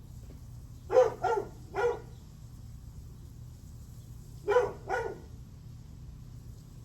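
A dog barking: three quick barks about a second in, then two more a few seconds later, over a steady low background hum.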